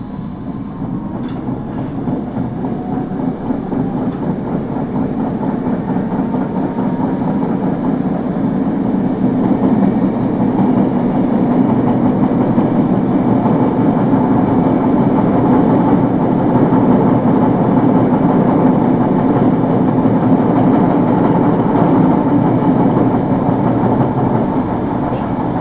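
Tokyo Metro 01 series subway car running on the line, the noise building over the first ten seconds or so as it picks up speed and then holding steady. Its wheels have flat spots, and their abnormal running noise covers the traction motors' brush sound so that it is only faintly heard.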